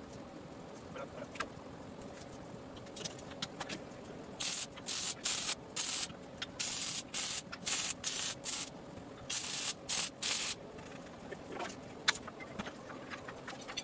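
MIG welder laying short tack welds on a steel box-tube frame rail: about a dozen brief bursts of arc sizzle, one after another, in the middle of the stretch. Light clicks and knocks of metal being handled before and after.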